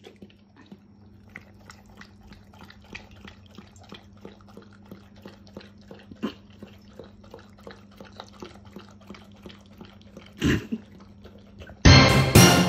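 Doberman lapping liquid from a raised metal bowl, a steady run of small wet laps at about four a second. A short loud sound follows near the end, then a loud burst of sound.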